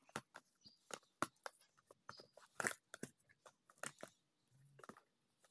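Small plastic cases of rotary-tool cutting discs and mandrels clicking and knocking against each other as they are handled, a dozen or so irregular sharp clicks.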